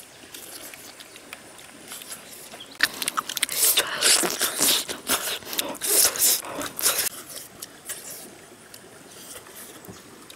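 Close-up chewing and lip-smacking while eating grilled catfish: a run of wet smacks and crunchy clicks from about three to seven seconds in, quieter at either end.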